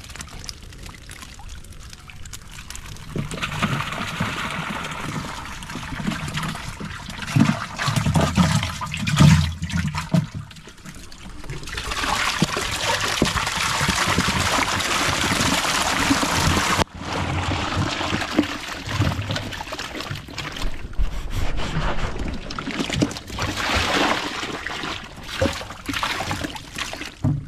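Water and live fish poured from a plastic jerry can into a tub: a steady splashing pour that breaks off once, then fish thrashing and splashing in the shallow water.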